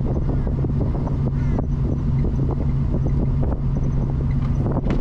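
Steady vehicle running noise: a constant low engine hum under even road or wind noise, with scattered light clicks.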